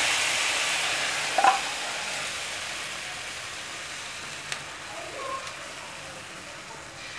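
Thin rice-flour ghavane batter sizzling on a hot oiled nonstick tawa as it is poured on in rings, the sizzle fading gradually. The hissing batter is setting into a lacy, holey crepe on the hot pan.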